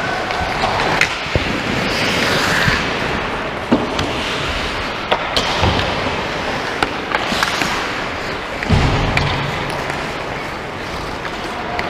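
Hockey game play: skates scraping on the playing surface under a string of sharp clacks from sticks and puck, with a heavier thud against the boards about nine seconds in.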